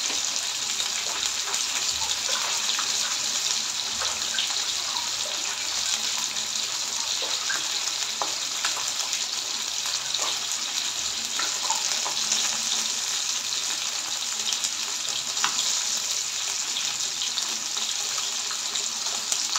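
Fish steaks shallow-frying in hot oil in a pan: a steady sizzling hiss with small scattered pops and crackles.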